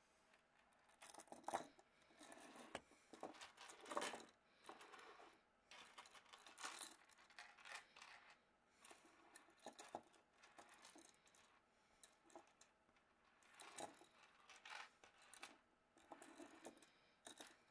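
Metal pocket watch chain handled on a wooden tabletop: irregular light clinks and rattles of the links with short scraping rustles, in scattered bunches with brief pauses between.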